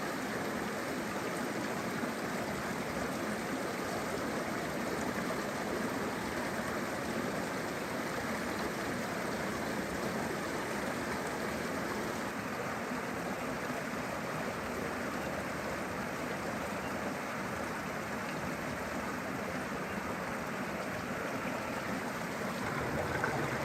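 Rocky mountain creek running steadily, water rushing and splashing over stones between small pools.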